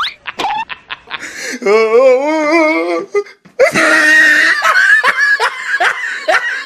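Loud laughing: one long, wavering laugh, then after a short pause a run of quick, repeated laughs.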